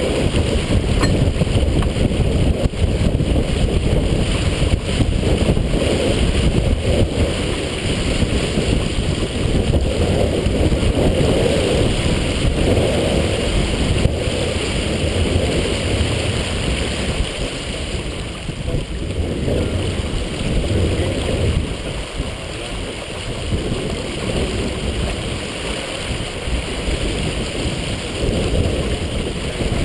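Strong wind buffeting the microphone, steady throughout, over water rushing and splashing along the hull of a sailboat heeled and moving fast under sail.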